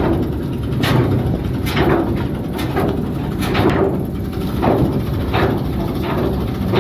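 Anchor chain clanking link by link through the windlass as the anchor is lowered, with a sharp ringing clank a little more than once a second. Under it runs the steady low rumble of the ship's diesel engine.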